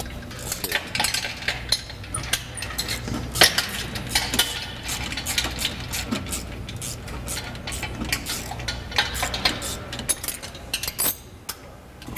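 Metal hand tools clinking and tapping against fittings on the underside of a jet engine: a run of sharp, irregular clicks over a steady low hum.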